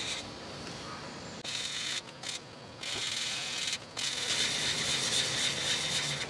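Sandpaper on a hand sanding block rubbed back and forth over cured gelcoat to flatten a repair, a rough scratchy hiss in runs of strokes with short breaks about two, two and a half, and four seconds in.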